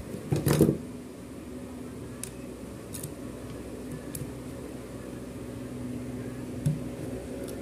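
Steady electrical hum, with a short clatter of parts being handled about half a second in and a few faint clicks after.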